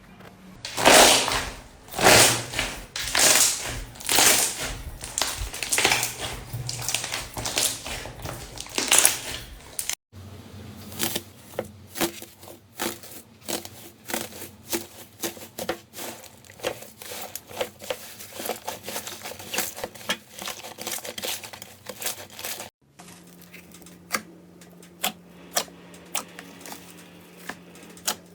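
Slime worked by hand: loud squishing and crackling presses for about ten seconds, then, after cuts, quicker runs of small sticky clicks and pops.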